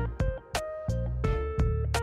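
Background music: a guitar-led track with a steady beat.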